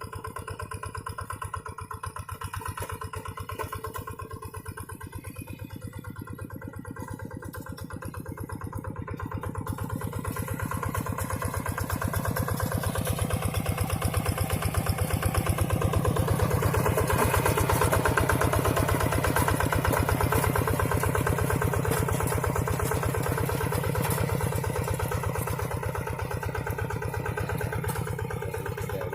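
Two-wheel Quick hand tractor's single-cylinder diesel engine chugging steadily while pulling a plough through the field. It grows louder from about a third of the way in as the tractor comes closer, then eases off slightly near the end.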